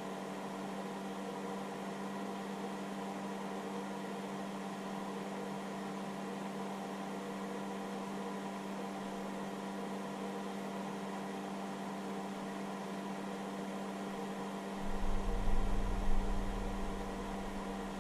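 Steady hum and fan hiss from a hobby battery charger running under load, one fixed low tone with fainter overtones above it. About 15 seconds in, a low rumble with a few loud irregular thumps joins it.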